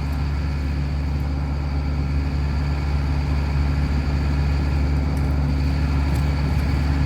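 2011 Bobcat E80 midsize excavator's diesel engine running steadily at a constant pitch.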